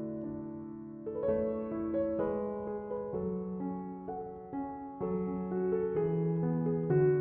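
Soft background piano music: gentle sustained chords changing every second or so.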